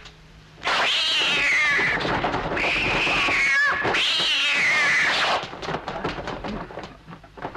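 Cat-like yowls: three long screeching cries, each sliding down in pitch, then quieter, broken sounds for the last couple of seconds.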